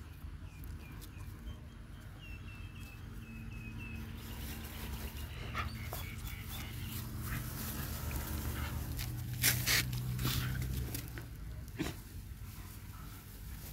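A dog breathing and sniffing close to the microphone, with a few short sharp noises, two close together a little past the middle, and a row of faint high chirps in the first few seconds, over a low rumble.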